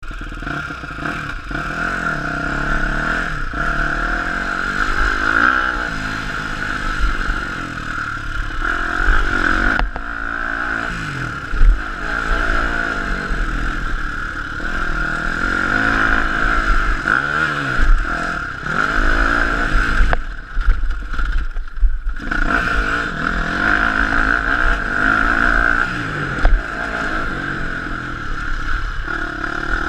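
KTM 250 SX-F single-cylinder four-stroke motocross engine revving hard, its pitch rising and falling with the throttle through the gears. There are a few sharp knocks along the way, and the engine note drops away for about two seconds a little past two-thirds of the way through.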